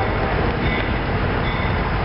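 Diesel locomotives approaching, their engines a steady low rumble under dense noise, with a grade-crossing bell dinging faintly about once a second.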